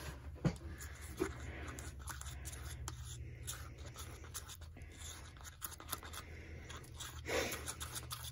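Scraping and scratching of a stirring utensil against the inside of a plastic cup as thick, still-lumpy mica pigment powder and polyurethane are stirred together, with a few light clicks and a louder scrape near the end.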